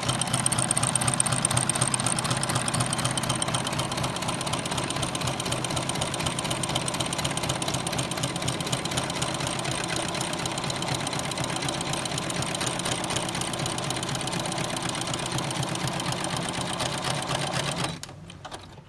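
Domestic sewing machine running steadily, stitching a zigzag seam through fabric with an overlock presser foot that trims the edge as it sews. It stops just before the end.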